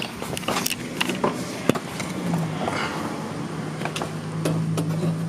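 Scattered clicks and knocks of hand tools prying at the shifter's retaining clip and pin in a BMW 328is, over a steady low hum that grows stronger about two seconds in.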